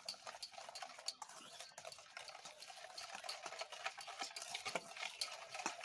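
Wire whisk beating powdered sugar and oil in a glass bowl: quick, continuous clicking and scraping of the wires against the glass.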